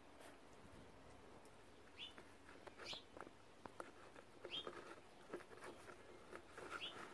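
Faint, scattered clicking and gnawing of a beagle puppy's teeth on a large chew, with four short high chirps spread through it.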